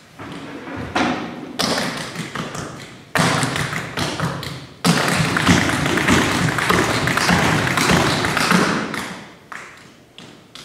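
Dense, rapid tapping and thumping that grows louder in three sudden steps over the first five seconds, holds, then fades away near the end.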